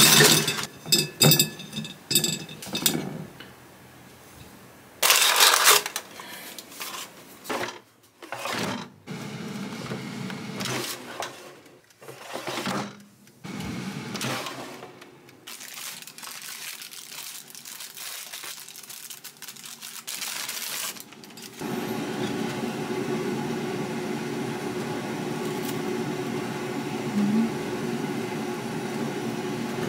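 Clicks, knocks and clatter of a black kitchen appliance's parts being handled and fitted together, then about two-thirds of the way in a steady mechanical hum with a constant low tone starts.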